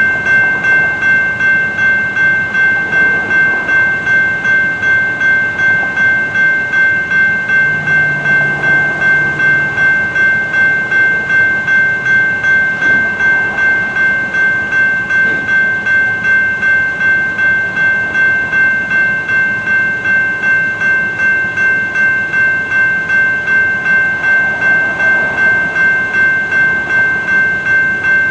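General Signals Type 2 electronic railroad crossing bell dinging steadily about twice a second, the warning that the crossing is still active with its gates down.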